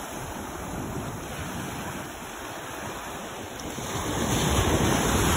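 Surf washing in over a shallow beach, with wind buffeting the microphone; a wave surges in louder about four seconds in.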